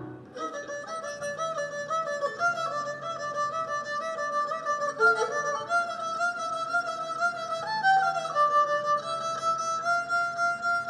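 Music led by a bowed string melody: quick, ornamented notes with a wavering pitch over a soft low accompaniment, settling into one long held note near the end.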